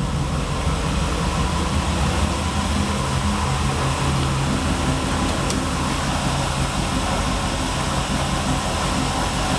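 1957 Chevrolet's engine idling steadily.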